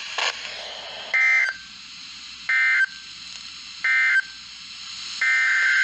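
NOAA Weather Radio SAME digital alert-data bursts, harsh buzzy two-tone warbles. Three short bursts about a second and a half apart mark the end of the message, then about five seconds in a longer burst begins the header of a second alert. Faint radio hiss lies between the bursts.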